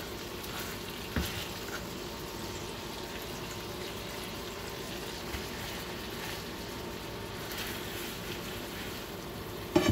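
Cubes of ground beef frying in a nonstick skillet, the butter and the water they have given off sizzling and bubbling steadily. A spatula clicks against the pan about a second in, and a louder knock comes near the end.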